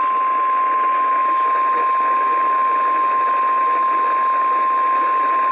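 NOAA Weather Radio 1050 Hz warning alarm tone, one steady high tone sounding for the required weekly test. It comes through a weather radio receiver over a constant static hiss.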